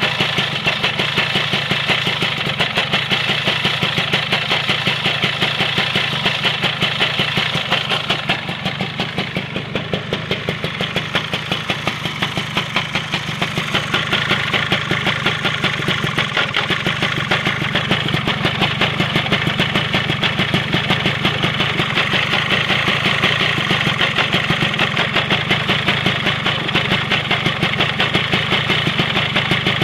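Lambretta two-stroke scooter engine running with a rhythmic slapping noise from the engine. The pace eases slightly about eight seconds in and picks up again. The slapping comes from the wrong front sprocket drive spring: with too little tension it lets the sliding dogs move.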